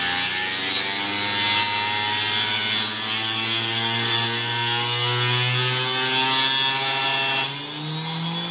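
Small benchtop hobby table saw cutting a small piece of wood: a steady motor whine under the rasp of the blade in the wood. Near the end the rasping stops and the whine rises in pitch as the blade comes free of the cut.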